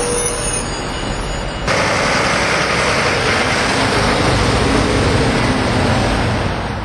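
City bus engine running in street traffic, a dense steady rumble that steps up sharply in level about two seconds in.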